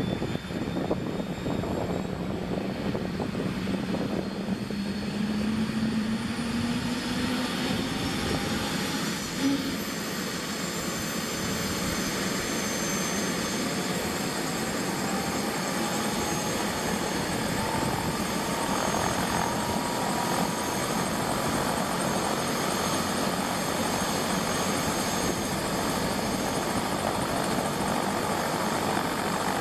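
Airbus AS350B3e (H125) helicopter's turbine and rotor running, a whine rising in pitch over the first twenty seconds or so and then holding steady. A brief knock about nine seconds in.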